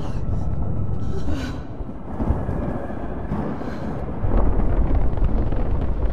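Movie sound effects: a low, steady rumble that grows louder about four seconds in.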